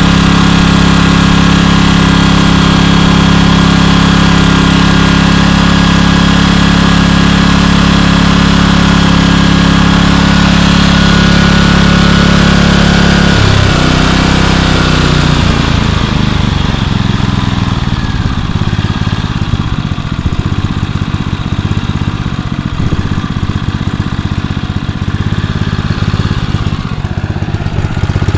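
Generac 4000-watt portable generator engine running steadily, then about halfway through its pitch drops and the even hum breaks up into an uneven, rougher sound.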